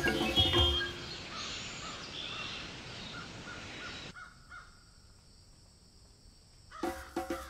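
Background music stops about a second in and gives way to a wildlife sound effect of harsh bird calls over a hiss, which fades to a quieter stretch; music with a regular percussion beat comes back near the end.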